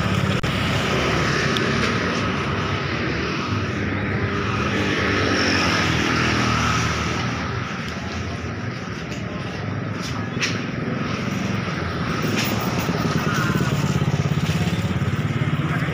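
Small motorcycle engines running in street traffic. One engine note rises and swells near the end as a bike passes close by.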